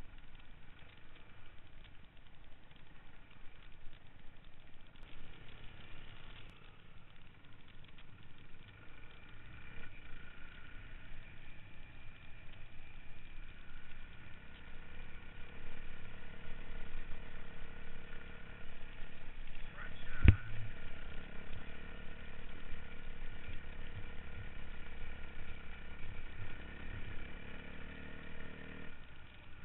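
Off-road motorcycle engines running steadily, growing louder about a third of the way in, with one sharp knock about two-thirds of the way through.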